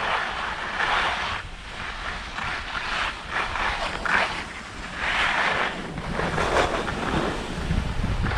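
Skis hissing and scraping over packed snow in repeated surges as the skier turns downhill, with wind buffeting the microphone.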